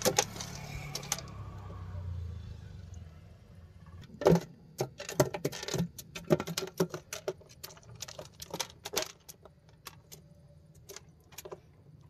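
Irregular clicks and metallic clinks of kitchenware being handled, most of them between about four and ten seconds in, with a low hum in the first couple of seconds.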